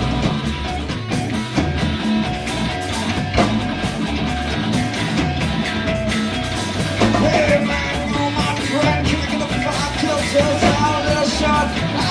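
Rock band playing a song live at a steady, loud level, with guitar.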